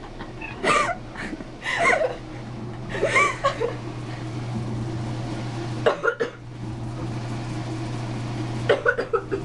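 A person's short coughs and a house cat's loud, complaining meows in reply, several separate calls in a row: the cat protesting at the coughing.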